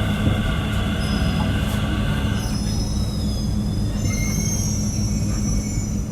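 Metro train running with a steady low rumble and hum. About two and a half seconds in, a whine stops and high-pitched wheel squeal takes over.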